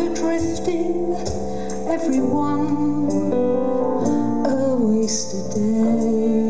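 Live band playing a slow song: a violin carries a gliding melody over sustained keyboard chords and guitar.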